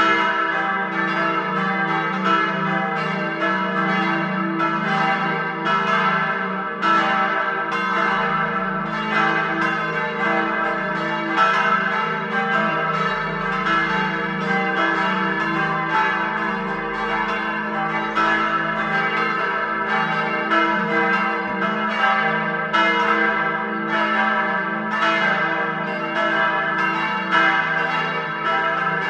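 Full peal of four church bells, tuned e' g' a' c'', swinging and ringing together: their strikes overlap continuously, with a steady low ringing beneath.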